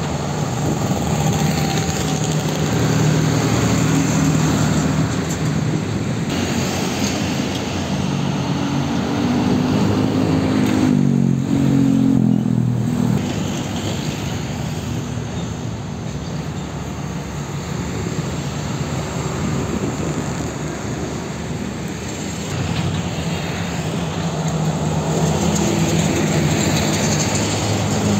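Heavy diesel trucks driving past one after another amid motorcycle and car traffic, their engines running under load. One truck engine's note climbs briefly about ten seconds in.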